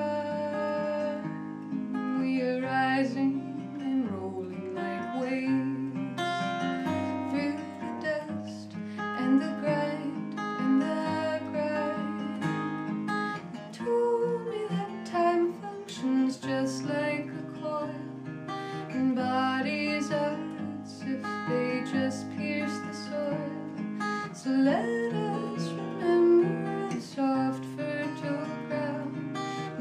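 Takamine cutaway steel-string acoustic guitar played solo, a plucked and strummed instrumental passage of sustained, changing chords.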